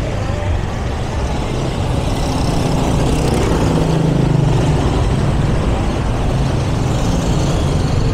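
Road traffic, with a motor vehicle's engine growing louder and fading again as it passes close by, about three to five seconds in, over a steady traffic rumble.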